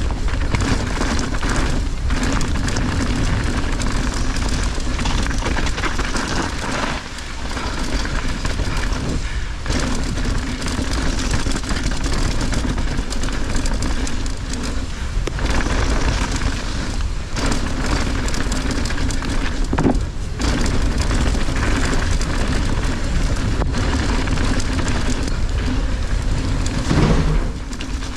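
Mountain bike riding a wet, rough trail: tyres rolling over mud and rock, the bike rattling over bumps, and a steady low rumble of wind and trail noise on a bike-mounted camera's microphone.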